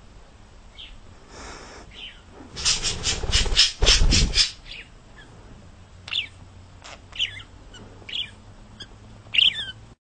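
Budgerigar chirping: five or six short, separate chirps in the second half. Before them comes a run of quick scratchy strokes, about six a second, which ends in a dull thump, the loudest moment.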